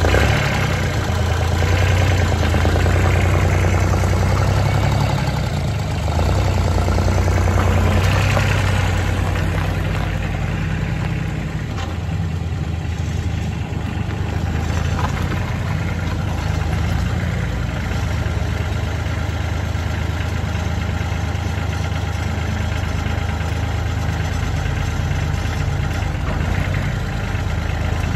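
Massey Ferguson 1020 compact tractor's diesel engine running steadily as the tractor is driven, a low, even drone. It is a little louder for the first nine seconds or so, then settles slightly quieter.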